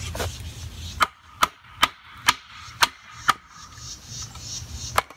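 Wooden baton striking the spine of a knife to baton it across the grain of a poplar stick: six sharp knocks, about two a second, then one more near the end.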